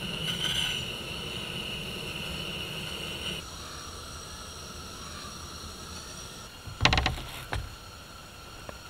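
A towel being shaken out, giving a quick cluster of sharp snaps and a second snap just after. Before it, a steady hiss stops abruptly about a third of the way in.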